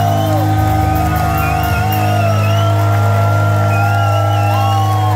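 Live rock band holding a loud, ringing chord through the amplifiers while the crowd whistles, whoops and cheers over it.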